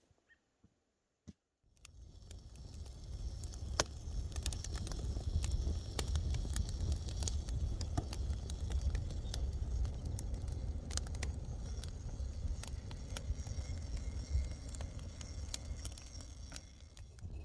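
Campfire crackling with many irregular sharp pops over a steady low rumble, fading in after a brief near-silent start.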